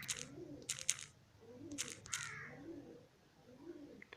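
Crows cawing in the background, several short harsh calls spread through the few seconds.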